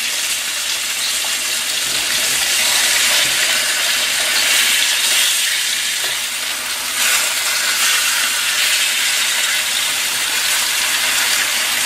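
Flour-coated pork chops sizzling steadily as they shallow-fry in hot vegetable oil in a wok.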